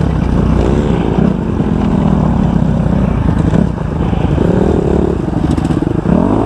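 Kawasaki 250 motocross bike engine revving, its pitch rising and falling several times as the throttle is opened and closed.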